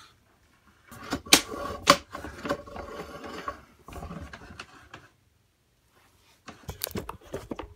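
Clicking, knocking and rattling of a sewer inspection camera's reel and push cable being handled and fed out, in two bursts with a pause of near silence between them.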